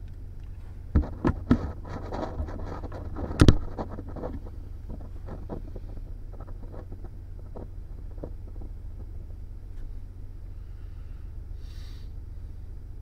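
Handling noise inside a car cabin: several sharp knocks and clicks, the loudest about three and a half seconds in, then lighter ticks as a camera or phone is fiddled with and fixed on its mount, over the car's steady low hum.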